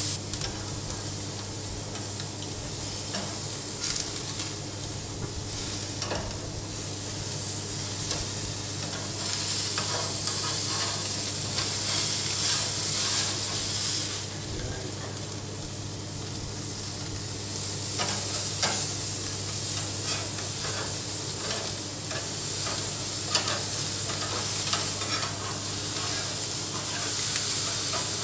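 Swordfish steaks sizzling on a hot gas barbecue grill: a steady hiss with scattered small crackles over a low steady hum.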